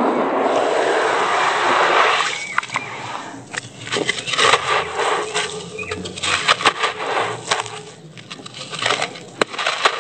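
Hands swishing through watery cement slurry in a plastic tub for about two seconds, then crumbling and rubbing a dry lump of sand-cement: gritty crackles, scrapes and crumbs falling onto the tub floor.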